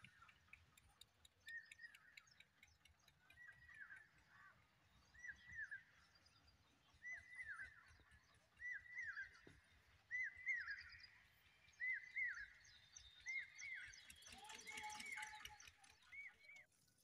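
A bird calling over and over, a short arched note, sometimes doubled, about every one and a half to two seconds. Fainter chirps of other birds sound around it.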